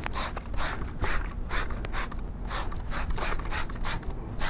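Trigger spray bottle being pumped rapidly, each pull giving a short hiss of wheel cleaner onto a car wheel, about three squirts a second.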